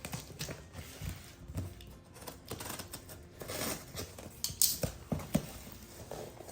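A parcel being opened by hand: packaging rustling and crinkling, with scattered sharp clicks and taps and a short rasp a little after the middle.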